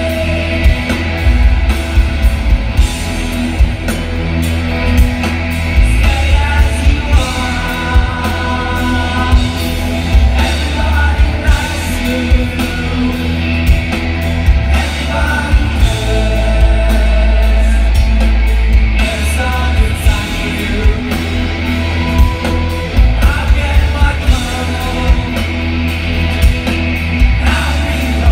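Live rock band playing loud through a festival PA: distorted electric guitars, bass guitar and drums, with singing. Heard from the crowd, it is very bass-heavy, with sharp drum hits.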